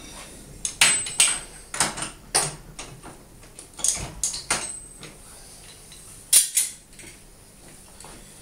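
Steel blocks and clamps of a hand-operated workshop press clanking and knocking as they are moved and set, about nine sharp metallic knocks at uneven intervals.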